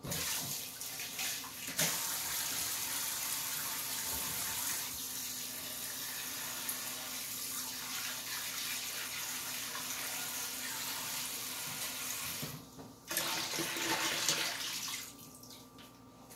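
Kitchen tap running steadily into a bowl, rinsing fish fillets. It stops briefly about twelve seconds in, runs again louder for about two seconds, then shuts off.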